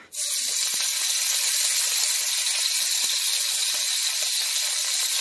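Raw pork strips sizzling in hot oil in a wok: a loud hiss that starts suddenly as the meat goes in and holds steady, with many small crackles and pops.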